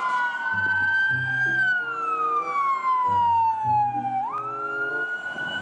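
Police siren wailing: its pitch drifts up, falls slowly for about two seconds, then sweeps quickly back up about four seconds in. Background music with a low bass line plays under it.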